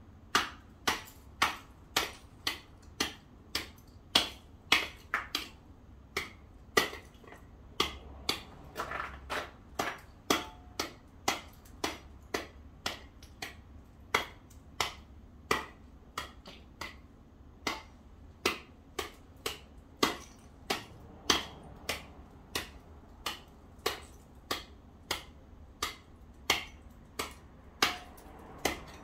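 A small hand tool striking icy pavement over and over, sharp hits close to two a second, chipping away leftover ice, with some brief scraping a third of the way in.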